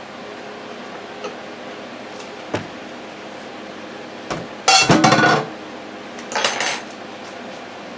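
Dishes clattering and clinking over a steady background hum: a few light knocks, then two louder bursts of clatter about five and six and a half seconds in.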